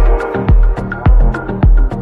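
Background music: an electronic track with a heavy kick drum a little under twice a second and crisp hi-hat ticks between the beats.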